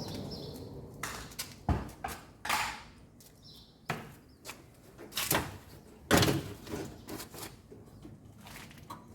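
Irregular knocks, clunks and scraping as the washing machine's top cover and control panel are worked loose and handled, with a few louder clunks among lighter clicks.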